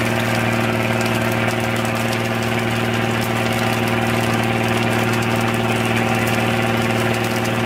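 Fishing boat's engine running steadily, an even low hum with no change in pitch or level.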